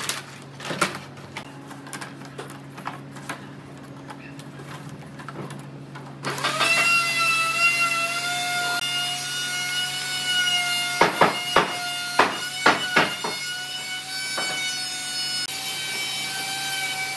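Thin wooden strips clicking and knocking against each other and the workbench as they are laid out. About six seconds in, a machine motor starts with a short rising whine and runs on at a steady pitch, with a few sharp wooden knocks about halfway through.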